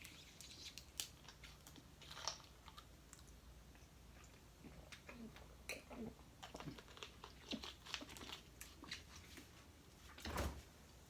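A person chewing and biting food close to the microphone, faint, with scattered small clicks and mouth sounds and one louder breathy noise near the end.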